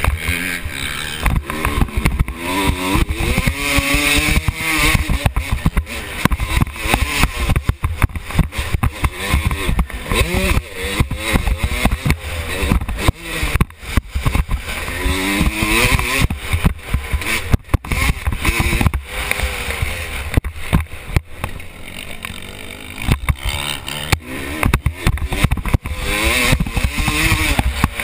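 Dirt bike engine revving up and falling away again and again as it is ridden hard around the track, heard through a helmet camera whose mount has worked loose, so the engine is buried in heavy low rumble and constant knocking and crackling.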